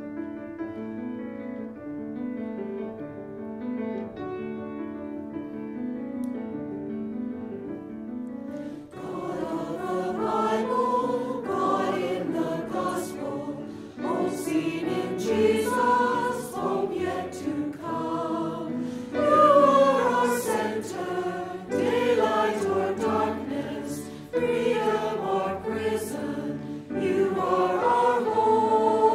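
Hymn music: a piano plays the introduction, then a choir comes in about nine seconds in, singing the first verse.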